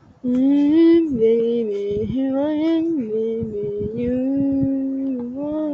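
A single voice singing a wordless tune in long held notes, moving to a new pitch about once a second, some notes wavering.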